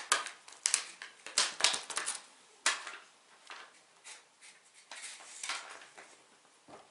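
Empty foil Felix cat-food pouch crinkling and crackling as a cat bats and pounces on it on the floor: quick irregular crackles, busiest in the first three seconds, then sparser.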